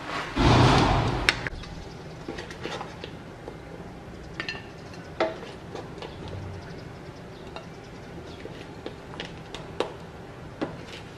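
Wooden spatula scraping and tossing food in a metal wok: one loud scrape early on, then scattered knocks and clinks as the food is scooped out onto a ceramic plate.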